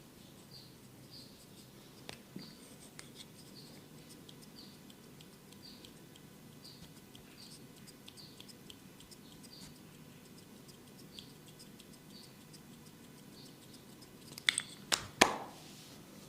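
A small bird chirping in the background, one high note repeated about every half second. Near the end come three sharp, loud clicks, the last with a brief ring.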